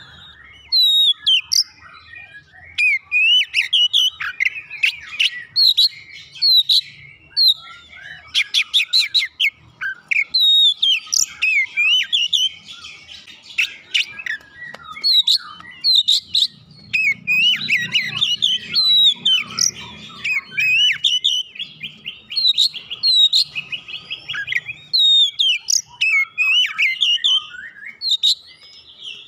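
Oriental magpie-robin singing a long, varied song of rapid whistled notes and chirps mixed with dry rattling clicks, almost without pause.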